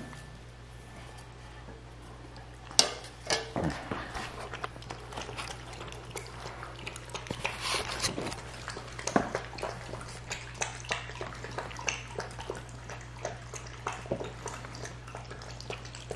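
German Shepherd puppies at their food and water bowls: an irregular run of small clicks, clinks and lapping ticks over a steady low hum.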